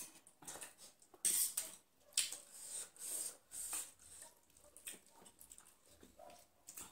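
Instant ramen noodles being slurped and chewed close to the microphone: a few short, hissy slurps in the first half, then softer chewing.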